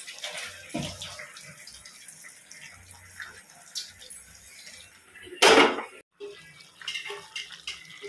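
Hot water pouring and splashing out of a pot of par-boiled rice into a stainless-steel colander as the rice is drained. A brief loud burst of noise comes about five and a half seconds in.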